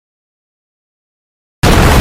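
Total silence, then about a second and a half in, a sudden, very loud, dense crashing sound effect cuts in, like an explosion, and keeps going.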